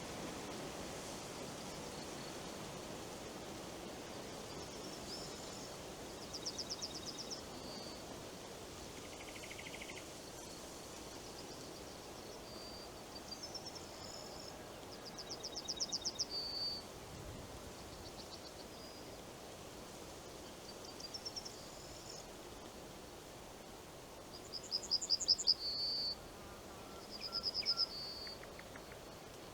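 A small songbird singing short, high, rapid trills every few seconds, the loudest near the end, over a steady hush of wind in the forest leaves.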